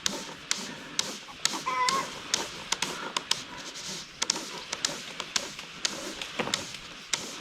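Scattered light clicks and taps of tree-climbing rigging gear and rope, with one brief squeak about two seconds in.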